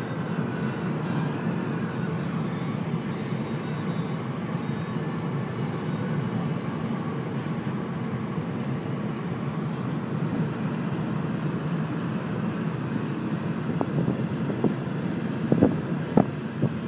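Steady road and engine rumble inside a moving Volvo's cabin, with a few sharp knocks near the end.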